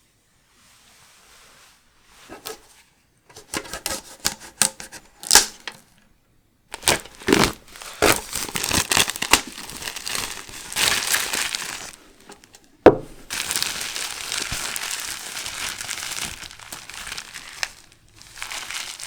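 Plastic and foil wrapping of a Pokémon card product crinkling and tearing as it is opened by hand. It starts as short scattered crinkles, turns into dense crinkling, has one sharp click about two-thirds of the way through, and then settles into a few seconds of steady rustling.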